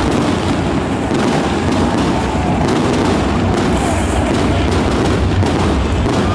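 Fireworks barrage: many shells and rising comets fired in quick succession, their bangs and crackles running together into a continuous rumble.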